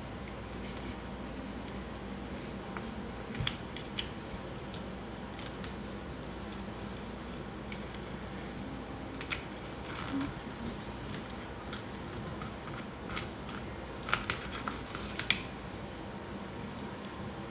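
Crinkling and rustling of vinyl decal sheets and their peeled backing being handled and smoothed flat by hand, with a scattering of short, sharp crackles, most of them bunched together near the end.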